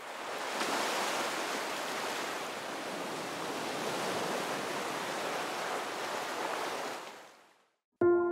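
Small waves washing onto a sandy beach: a steady hiss of surf that fades out about seven seconds in. Music starts right at the end.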